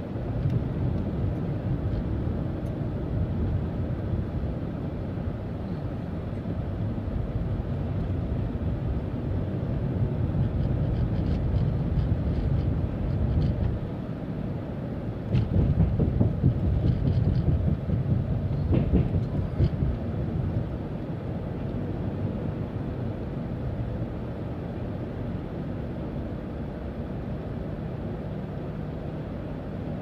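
Steady low rumble of tyre and road noise inside a moving vehicle. It grows louder for a few seconds about halfway through as the vehicle crosses a bridge, with light clicks and rattles.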